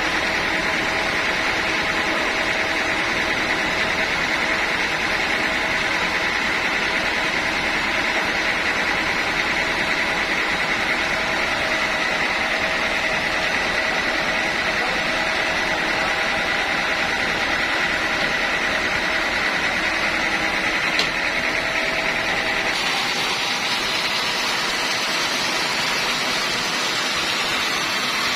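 Band sawmill running steadily, a high whine over a constant mechanical noise. About 23 seconds in the whine drops away and the sound of the machine changes.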